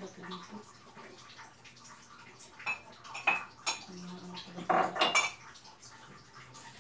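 Kitchenware clattering as dishes, pots and utensils are handled and set down on a counter: a handful of sharp metallic clinks and knocks, with a quick cluster of them about five seconds in.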